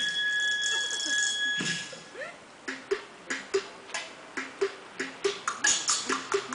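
Folk dance music: a flute or whistle holds two high notes for the first couple of seconds, then after a brief lull a percussion beat starts, sharp knocks about three a second with lower wooden tones stepping between two pitches.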